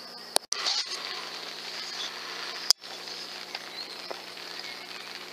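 Outdoor ambience with distant birds singing, broken by two sharp clicks, each followed by a brief gap, one about half a second in and one near the middle, where the recording is cut.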